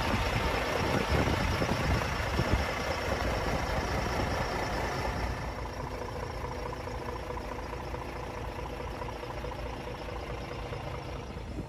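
Scania S450 truck's 13-litre six-cylinder diesel idling steadily, with gusts of wind on the microphone in the first few seconds.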